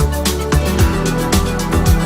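Background music with a steady beat, a kick drum hitting about twice a second under held notes.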